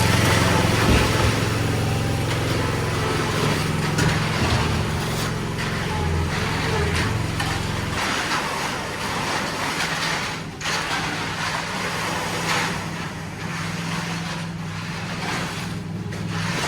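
Engine running steadily under a noisy hiss, its low drone changing about eight seconds in.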